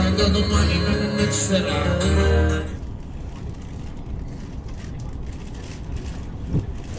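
Guitar music with singing that cuts off abruptly about two and a half seconds in. Quieter background noise follows, with a single short knock near the end.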